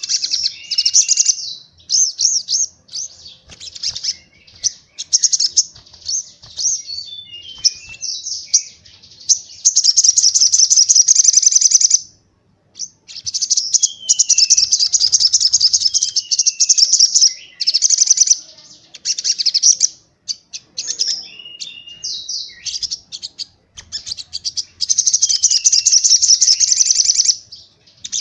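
Pleci (white-eye) song in rapid 'tembakan' volleys: long, fast, high-pitched trills lasting a few seconds each, broken up by short chirps and downward-sliding notes. It pauses briefly about twelve seconds in.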